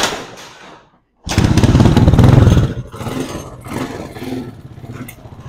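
1996 Honda XL 125's single-cylinder four-stroke engine being kick-started with the decompression lever: a first kick turns it over briefly, then about a second in it fires and runs loud for about a second and a half before settling to a quieter idle.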